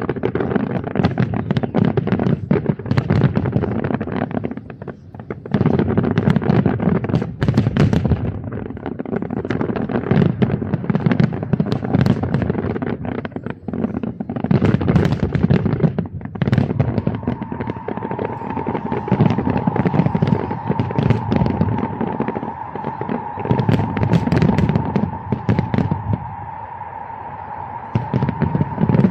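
Fireworks display going off without pause: dense crackling and popping over repeated deep booming salvos. A steady high tone joins about two-thirds of the way through.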